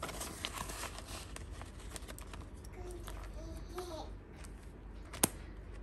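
Paper banknotes and plastic binder pockets being handled: soft rustling and small clicks, with one sharp click about five seconds in. A faint voice babbles in the background around the middle.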